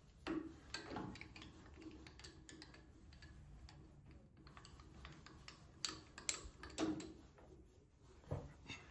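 Scattered sharp clicks and light metal knocks as the tailstock quill and slide handwheels of a Colchester Chipmaster lathe are worked by hand, with a cluster of the loudest clicks about six to seven seconds in.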